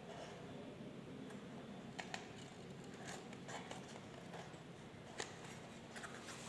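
Faint handling noise of a subwoofer cone being fitted into the speaker frame: soft rustles with a few sharp clicks, about two, three and five seconds in.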